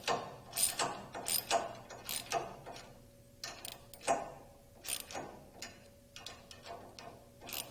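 Ratchet wrench clicking in short irregular strokes while the two clamping bolts on the secondary shaft's bearing flange are tightened.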